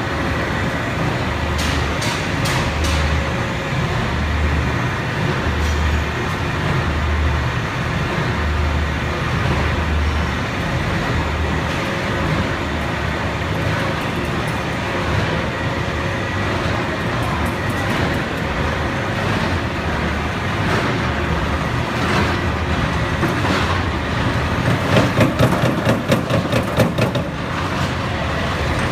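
Industrial charcoal-production machinery running: a continuous mechanical din with scattered clicks and clatter. A low throb comes about once a second for the first ten seconds, and the noise grows louder and uneven for a few seconds near the end.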